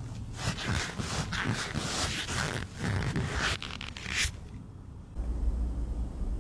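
Cotton swab scraping and rustling in a kitten's ear in a run of scratchy strokes for about four seconds. A low steady rumble starts near the end.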